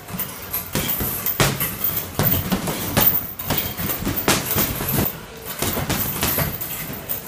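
Boxing gloves punching a heavy bag: an irregular series of sharp thuds, several a second, in short combinations.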